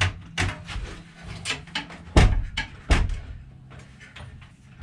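Irregular knocks and thumps as an aluminum pull-down attic ladder unit is handled and shifted in its ceiling opening in the attic floor, with the loudest knock about two seconds in.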